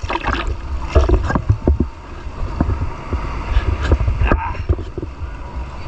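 Sea water sloshing and splashing against a camera held at the surface, with a heavy low rumble of water and wind on the microphone and many short splashes.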